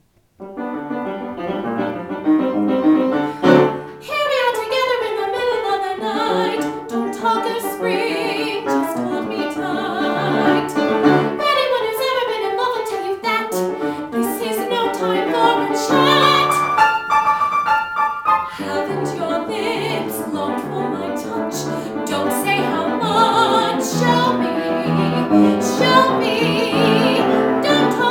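Piano accompaniment for a musical-theatre song starts about half a second in, with a young woman's singing voice over it.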